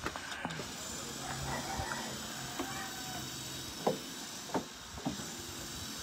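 Three short, sharp knocks in the second half, a little over half a second apart, over a steady background hiss.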